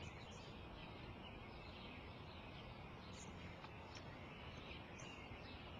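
Faint outdoor ambience: a soft steady hiss with small birds chirping now and then.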